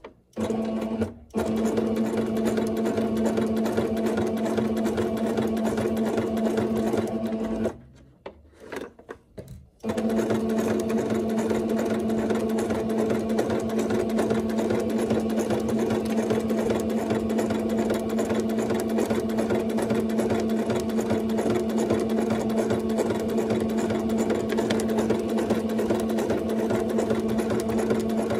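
Singer 6680 sewing machine stitching at a steady speed. It stops briefly about a second in, then pauses for about two seconds around eight seconds in before running on steadily.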